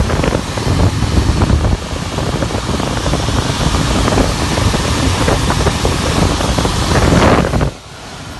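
Wind buffeting the microphone: a loud, rumbling, crackling rush that cuts off suddenly near the end.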